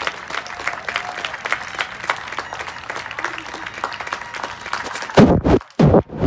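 Audience clapping steadily, with faint voices in the background. About five seconds in, two short, loud, low rushes cut across the clapping.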